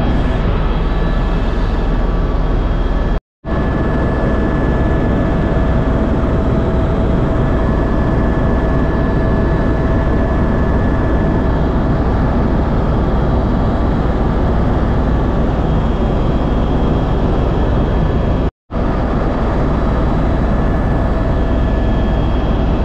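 Helicopter's steady engine and rotor noise, with a few faint steady tones running through it. The sound breaks off for an instant twice.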